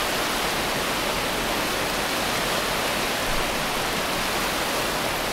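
Steady rushing of a fast mountain river running bank full, an even wash of water noise.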